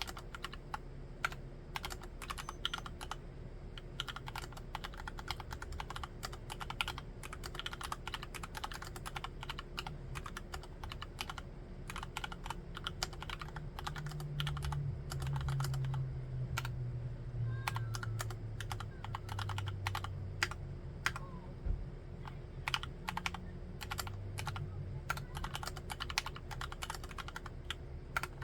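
Typing on a Cox CA106 full-aluminium, full-size Alice-layout mechanical keyboard with Gateron Brown tactile switches: a steady, irregular run of quick keystrokes. A low rumble swells underneath from about halfway through.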